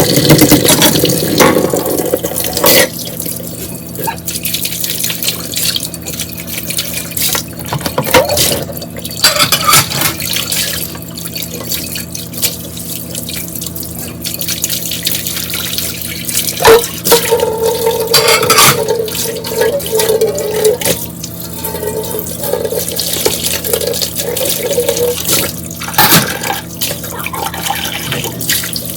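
Tap water running into a kitchen sink during dishwashing, with dishes knocking and clinking now and then. About halfway through, a wavering tone comes and goes for several seconds.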